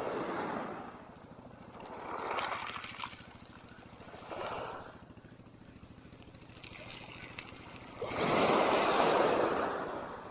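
Small waves washing onto a pebble beach, coming in several swells a couple of seconds apart, the biggest about eight seconds in.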